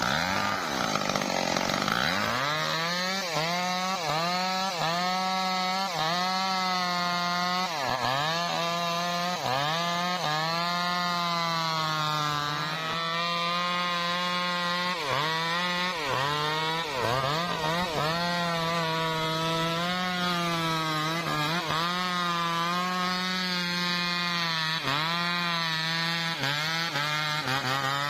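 Stihl MS 382 two-stroke chainsaw revving up, then cutting through trembesi (rain tree) wood, its engine pitch dipping under load and recovering every second or two.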